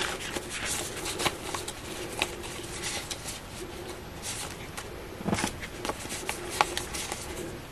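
Crisp polymer banknotes rustling and crackling as they are leafed through and counted by hand, with irregular sharp clicks of notes snapping against each other, a little denser about five seconds in.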